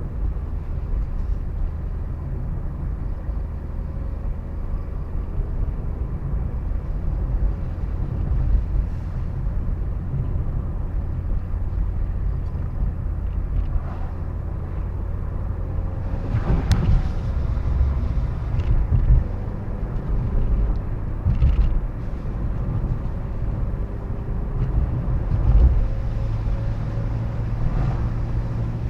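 Steady road and engine noise heard from inside a moving car: a low hum and rumble, with a sharp click about two-thirds of the way through and a few fainter knocks.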